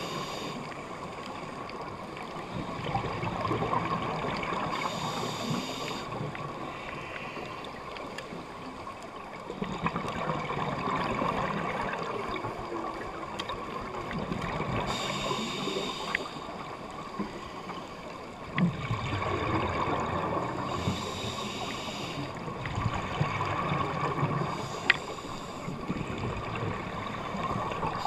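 Scuba breathing heard underwater: a regulator hissing and bursts of exhaled bubbles, coming in cycles every few seconds over a steady underwater hum.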